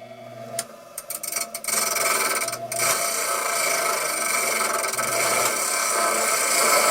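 Power grinder running, touching the work a few times about a second in, then grinding steadily into the cut-off flathead screw from about two seconds in.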